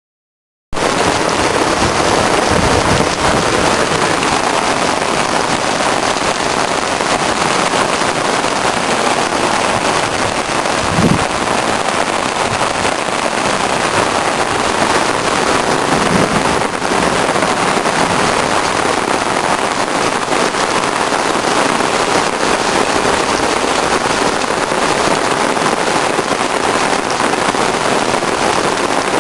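Heavy thunderstorm rain pouring down as a loud, steady hiss, cutting in suddenly just under a second in. A brief low thump stands out about eleven seconds in, with fainter low swells near the start and around sixteen seconds.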